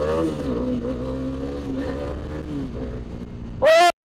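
Motorcycle engine held at fairly steady high revs, wavering slightly up and down as the throttle is held through a wheelie. Near the end a short, very loud rising tone sounds, then the audio cuts off abruptly to silence.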